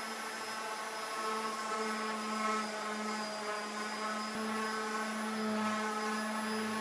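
A small electric motor running steadily at one pitch, a whining hum over a hiss.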